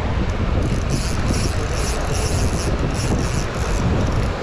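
Wind buffeting the microphone in a steady low rumble, with a soft raspy stroke about three times a second from a spinning reel being cranked.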